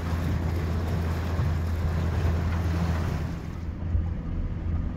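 Boat engine running steadily underway with a low hum, over wind buffeting the microphone and water noise. The wind noise eases about three and a half seconds in.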